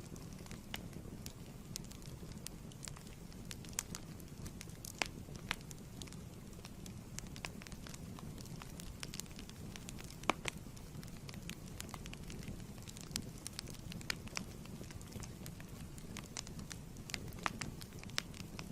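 Wood fire crackling in a fireplace: a steady low rumble with irregular sharp pops and snaps, one louder pop about halfway through.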